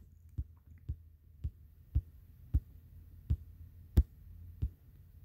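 A series of soft thumps and clicks, roughly two a second and slightly uneven, from fingertip flicks and taps on a tablet touchscreen during scrolling, over a faint low hum.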